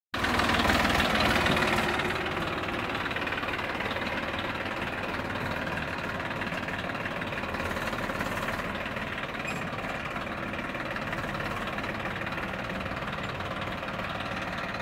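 Massey Ferguson 241 DI tractor's three-cylinder diesel engine running as the tractor drives up. It is louder for about the first two seconds, then runs steadily.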